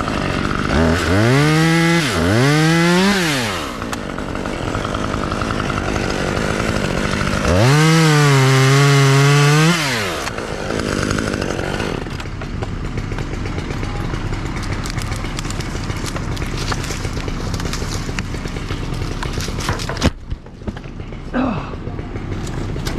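Two-stroke chainsaw revving: two quick throttle blips near the start, then a longer rev held high about eight seconds in that drops back, with the saw running lower in between.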